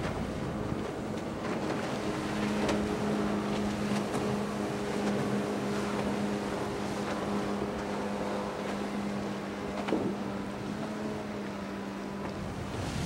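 Pontoon boat's outboard motor running at steady speed, a constant engine drone over the hiss of its wake and wind on the microphone. The drone weakens near the end as the boat moves away.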